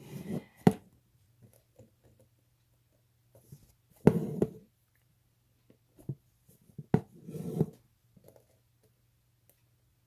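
Embroidery needle pushed through fabric and floss pulled after it, while filling a shape with stitches. There are three stitches about three seconds apart, each a sharp tap with a short scratchy pull of thread.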